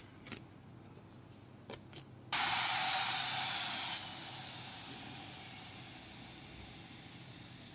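A few faint clicks, then about two seconds in a sudden loud rush of air hiss starts, with a faint high whistle gliding down in pitch. After about a second and a half it eases off and fades slowly away.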